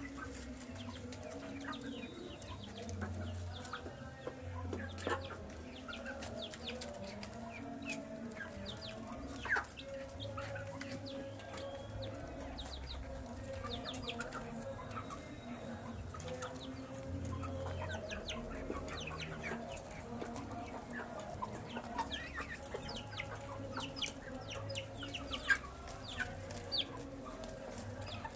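A brood of baby chicks peeping continually while feeding: many short, high, falling cheeps, over frequent light clicks of pecking and a low steady hum.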